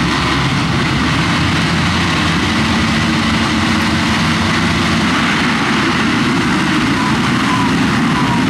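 A full gate of motocross bikes running together at the race start, many engines revving at once in one dense, unbroken wall of sound, with single bikes revving up near the end as the pack pulls away.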